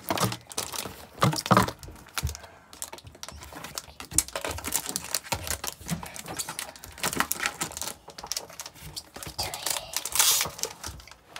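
Pokémon trading cards and foil booster-pack wrappers being handled: an irregular run of light clicks and crinkling rustles.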